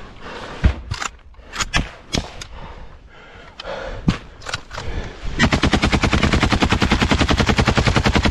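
Scattered single gunshots over the first few seconds. About five seconds in, a long unbroken burst of machine-gun fire starts close by, rapid and even, and is the loudest sound.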